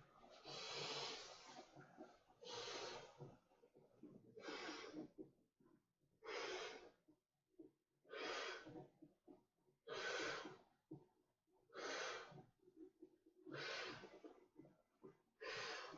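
A person inflating a vinyl blow-up raft by mouth: a long puff of breath blown into the valve about every two seconds, with quieter breathing between the puffs.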